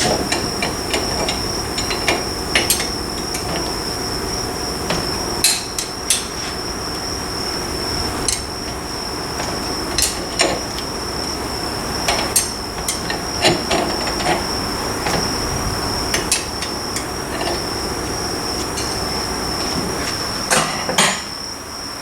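Irregular sharp metal knocks and clanks, like hammer strikes, as the rear differential carrier of a Suzuki Carry kei truck is worked loose from the axle housing. Underneath runs a steady thin high-pitched tone.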